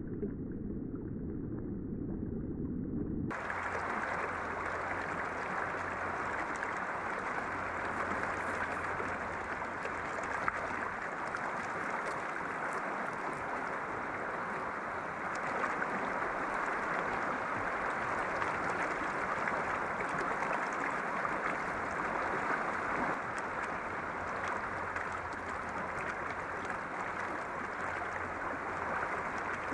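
Steady rushing of flowing river water. About three seconds in the sound suddenly changes from a low rumble to a brighter, fuller rush.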